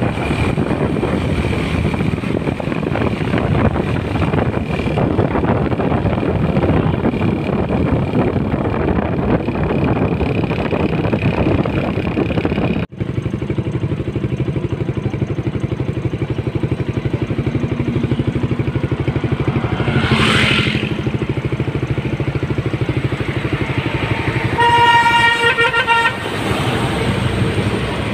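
A MAN heavy-haul truck with a loaded low-bed trailer passing close, its diesel engine and tyres making a steady heavy rumble. After a sudden break, traffic runs on as another heavy truck approaches, and a horn toots once for about a second near the end.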